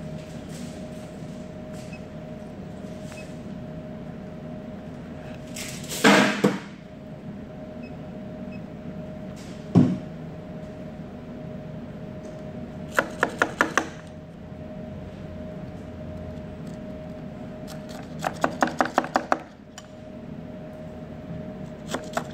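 Steady room hum with a constant whine, broken by a short loud scrape about six seconds in, a single thud near ten seconds, and three quick runs of sharp rattling clicks, the last near the end.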